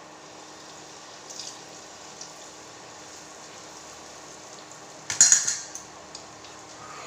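Kitchen sounds at the frying pan: a steady faint hiss under a low hum, then a short, loud clattering burst about five seconds in.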